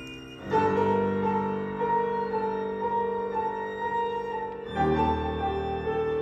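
String trio playing classical chamber music live: a new chord enters about half a second in, with a high bowed line held with vibrato over sustained lower notes, and the harmony shifts to a lower, fuller chord near the end.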